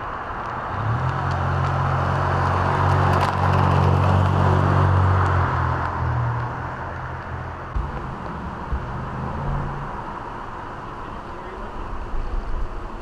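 A motor vehicle going by: a low engine drone with road noise that swells over the first few seconds and fades away after about ten seconds.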